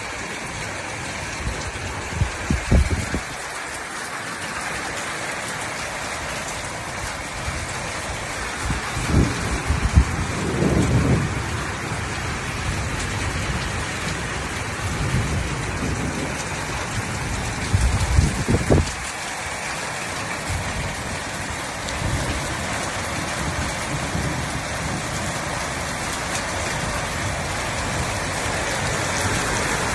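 Heavy rain falling steadily, with four brief deep rumbles of thunder breaking through.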